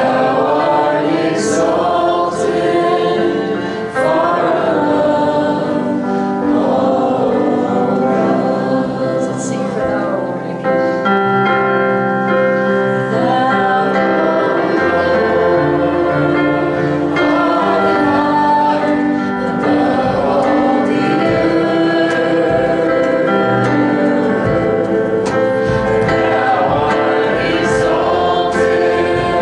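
Live worship band performing a gospel song: women's voices singing with acoustic and electric guitars and keyboard, played steadily throughout.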